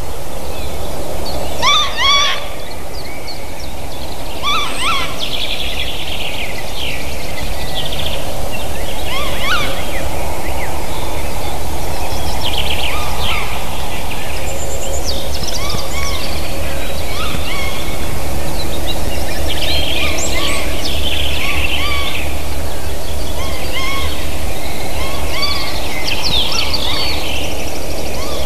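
Several wild birds calling, short chirps and curving call notes again and again, over a steady low rumble; one of the callers may be a jay.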